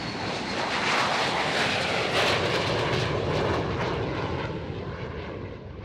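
Jet aircraft engines at takeoff power: a loud rushing noise that swells about a second in and fades away near the end.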